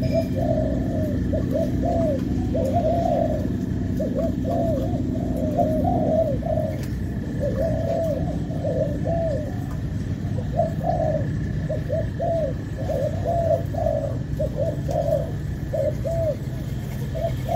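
Several spotted doves cooing, their repeated coos overlapping with hardly a break, over a steady low hum.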